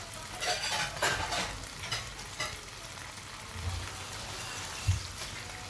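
Clams simmering in their broth in a nonstick wok, bubbling and sizzling steadily. A few light clicks come in the first couple of seconds, and there is a dull knock near the end.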